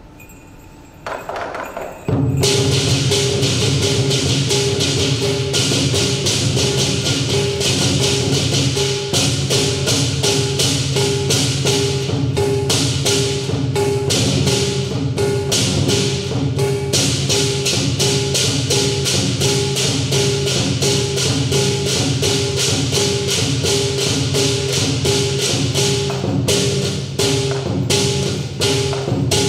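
Southern lion dance percussion: big drum, cymbals and gong playing a fast, dense, loud rhythm. It comes in about a second in and goes to full volume about two seconds in, with the strokes spacing out near the end.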